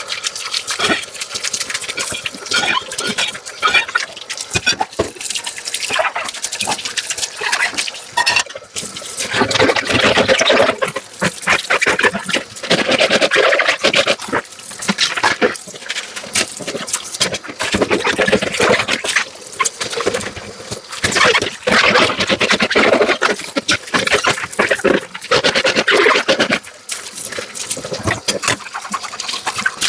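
Dishes being washed by hand in a sink: running tap water and scrubbing, with many short clinks and knocks of dishes throughout.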